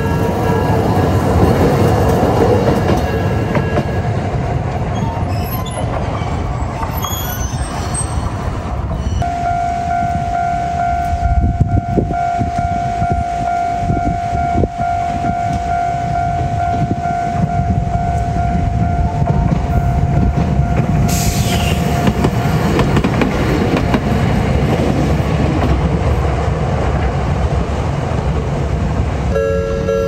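A Toden Arakawa Line tram running over a level crossing, its wheels rumbling steadily on the rails. Steady electronic tones from the crossing's warning signal sound over the rumble, with a single long tone through the middle and a brief hiss about two-thirds of the way in.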